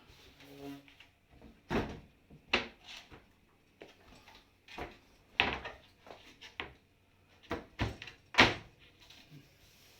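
Dishwasher cover being fitted back into place on the machine: a series of irregular sharp knocks and clacks, the loudest about two seconds in, around the middle and a little before the end.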